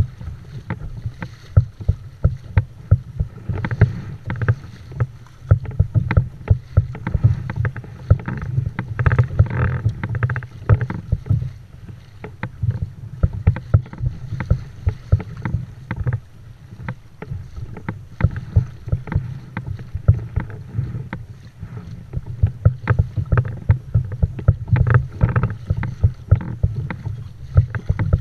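Plastic fishing kayak pushing through open-sea chop: water slapping and splashing against the hull in quick, irregular knocks over a steady low rumble.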